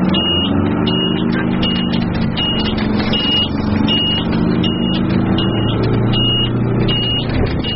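Titan airport fire-rescue truck's engine running as it drives, heard from inside the cab, its engine note shifting slightly in pitch. Over it, a short high electronic warning beep repeats steadily, about one and a half times a second.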